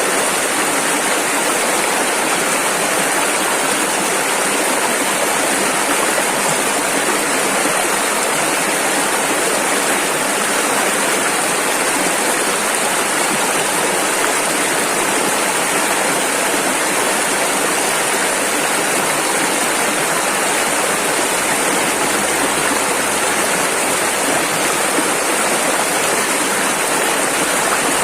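Rushing river water, a steady, loud wash of rapids flowing over rocks, unchanging.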